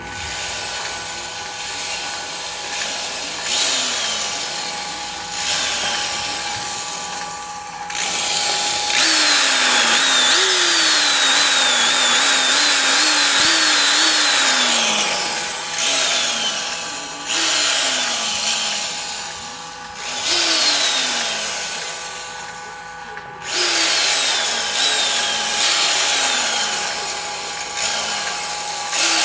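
Porter-Cable 2610 corded electric drill run unloaded in repeated trigger pulls. Each pull spins the motor up to a whine whose pitch then falls as it slows, with a longer, louder run about eight to fifteen seconds in.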